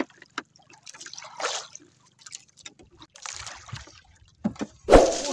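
Seawater sloshing and trickling against the hull of a small outrigger boat in a few short splashes, with light clicks and knocks; a louder splash near the end.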